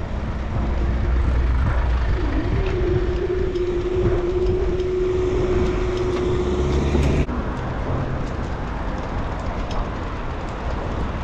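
Riding noise on a Brompton folding bike in town traffic: a low rumble of wind and tyres with passing cars. A steady hum joins about two and a half seconds in, and the sound changes abruptly about seven seconds in.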